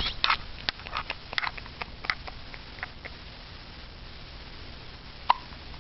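A young child hiccuping: one sharp, short 'hic' about five seconds in, after a run of small clicks in the first three seconds.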